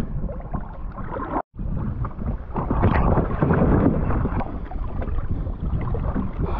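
Water and wind noise around a kayak on a moving river: a steady rushing with small irregular splashes, cut off for an instant about a second and a half in.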